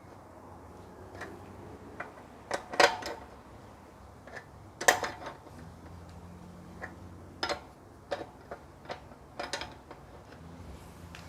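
Scattered sharp metallic clicks and knocks, loudest about three and five seconds in, as a spanner works on a bicycle wheel's axle nut.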